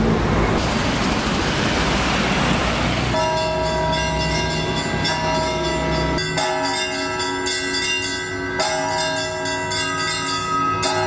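Low engine and street-traffic rumble, then from about three seconds in, steady ringing tones sounding together as chords that shift every two to three seconds.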